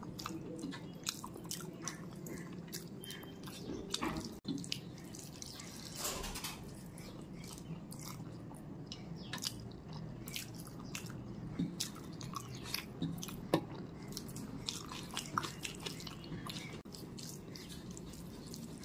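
Close-up eating sounds: wet chewing of rice and curry with many small sharp mouth clicks and smacks, scattered irregularly, over a steady low hum. There are soft squishes from fingers mixing rice and curry on a metal plate.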